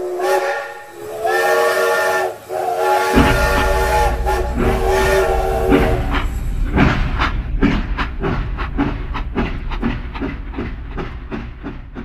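Steam locomotive chime whistle sounding three times, the third blast long. A train's low rumble comes in under it and continues as a rhythmic beat of about three a second that slowly fades.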